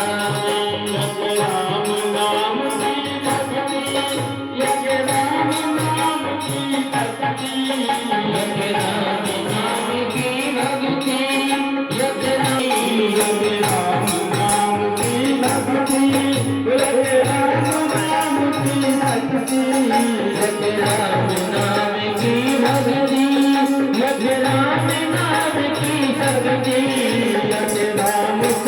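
Devotional kirtan music: a slowly gliding melody over a steady beat of jingling hand percussion and drum.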